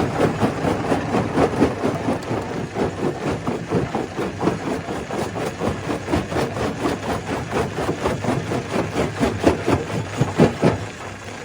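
Stone crusher breaking rock: a rapid, irregular clatter of rocks cracking and knocking against each other and the crusher over the machine's steady running. The clatter is loudest about ten seconds in and dies down near the end.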